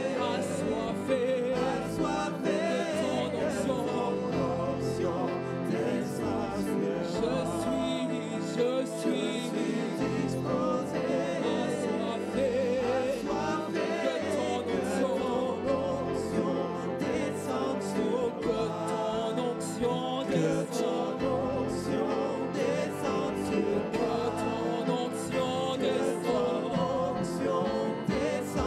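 Gospel-style church worship music: a praise band playing a song with a steady beat while voices sing along.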